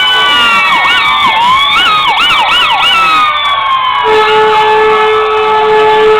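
Several fire truck sirens sounding at once: a wail slowly falling in pitch, overlapped by a fast yelp for about two seconds, then a steady low tone coming in about four seconds in and holding.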